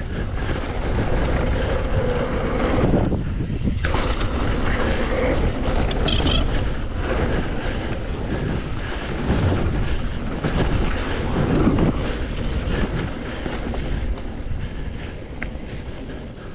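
Mountain bike riding a dirt trail: wind rushing on the microphone over the rumble and rattle of the tyres and bike on rough ground.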